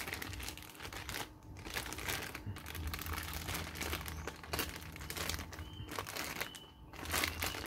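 Clear plastic bag crinkling as a coiled power cable is handled and pulled out of it, in irregular rustling bursts with short pauses.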